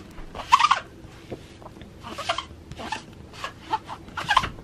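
Sticky-sheet lint roller rolled over a cat's fur in a series of uneven crackly strokes, the adhesive sheet pulling at the hair.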